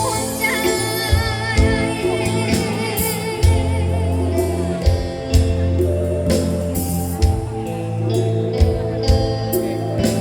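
Song with a lead singer holding wavering, vibrato notes over a steady bass line and a regular drum beat.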